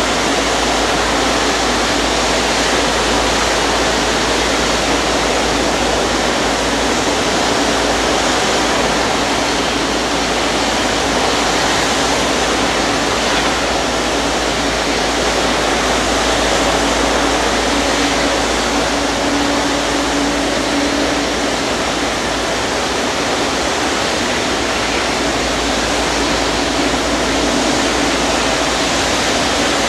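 Steady hiss and rumble of aircraft jet-turbine noise across an airport apron, with a faint constant hum underneath.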